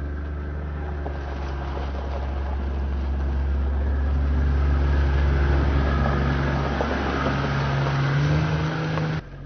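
Diesel engine of a JCB construction machine running, growing louder over the first few seconds, with its pitch shifting under load in the second half. The sound drops off abruptly near the end.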